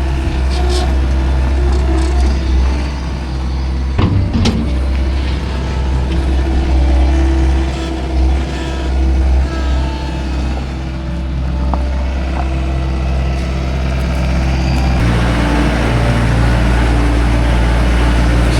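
A farm machine's engine running steadily, with a sharp knock about four seconds in and a change in the engine note near the end.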